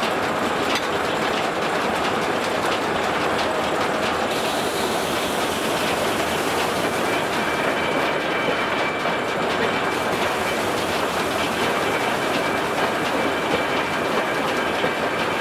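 Steam-powered sawmill running as the carriage feeds a log through the saw and a slab is cut off its top: a steady, dense mechanical clatter, with a thin high whine joining in about halfway through.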